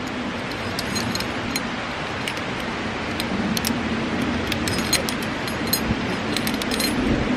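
Metal climbing carabiners and a figure-eight descender clinking together as they are handled: scattered light metallic clicks and brief small rings, over a steady background rush.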